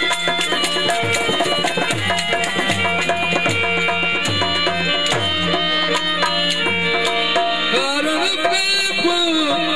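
Folk music with a dholak drumming in a steady rhythm, its bass strokes bending down in pitch, under sustained instrumental notes; a male voice starts singing near the end.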